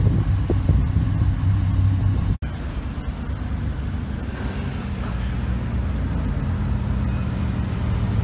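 Lamborghini Gallardo Spyder's V10 engine running with a loud, low rumble. After a sudden cut about two and a half seconds in, a Bugatti Veyron's W16 engine runs steadily and a little quieter.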